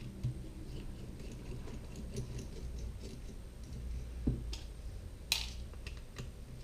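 Small Phillips screwdriver backing tiny screws out of a phone's back frame: faint, scattered ticks and clicks, with one sharper click about five seconds in.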